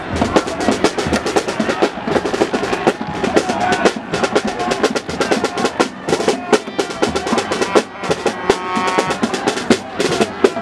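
Rapid drumming, a dense roll of quick snare-like hits, mixed with crowd voices, with a short held tone about three-quarters of the way in.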